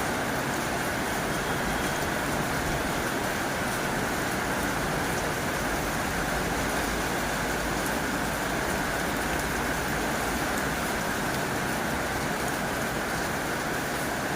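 Heavy rain drumming steadily on a tin roof, a dense, unbroken patter of drops with no letup.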